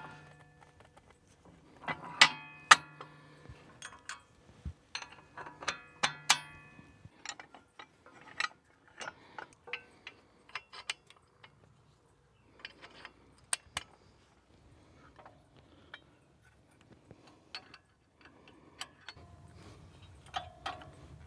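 Scattered metal clicks and clinks, a few ringing briefly, as a cotter pin is worked out of the lift-arm pin on a John Deere 4075R's three-point hitch. The pin is stubborn and gets mangled as it comes out.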